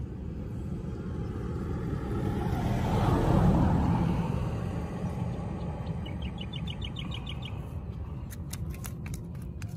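A passing vehicle, its noise swelling to a peak about three and a half seconds in and then fading. A short rapid run of high chirps follows, and a few sharp clicks come near the end.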